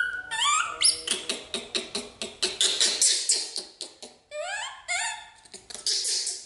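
Baby macaque squealing: a fast run of short, high squeaks, with longer calls that sweep sharply upward in pitch near the start and again about four and a half seconds in.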